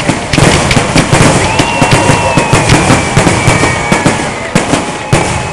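Aerial fireworks shells bursting in a dense, rapid barrage of bangs and crackles.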